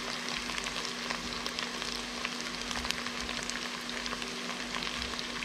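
Sliced sweet and hot peppers sizzling as they go into hot vegetable oil with frying onions in a pan: a steady hiss with many small crackling pops. A faint steady low hum runs underneath.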